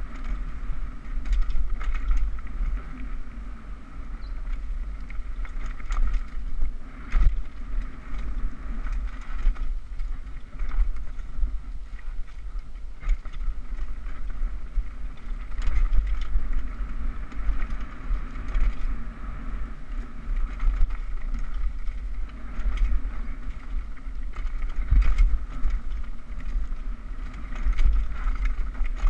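Mountain bike descending a dirt trail at speed: tyres rumbling over dirt and leaf litter, with frequent knocks and rattles as the bike goes over roots and rocks, and heavy wind buffeting on the microphone.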